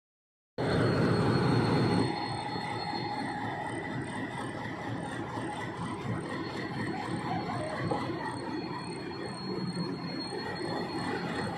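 A diesel locomotive rolls slowly past on new track. Its engine runs with a steady rumble of wheels on rail and a thin, high squeal that comes and goes. The sound is louder for the first second or so.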